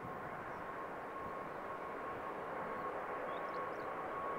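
Airbus A380's four jet engines at takeoff thrust during the takeoff roll, heading toward the listener: a steady jet rush with a high whine, slowly growing louder.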